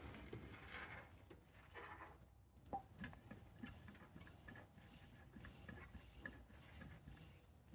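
Near silence, with faint, scattered light clicks and ticks and one sharper click about three seconds in.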